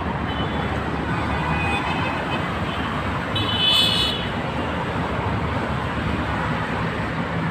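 Steady road traffic passing on a busy street, with a short car horn toot about three and a half seconds in.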